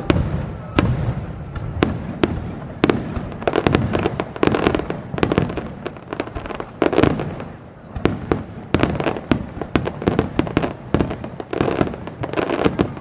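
Aerial firework shells bursting, a string of sharp bangs over a low rumble, with the bangs coming thicker and faster from about eight seconds in as many small crackling stars go off at once.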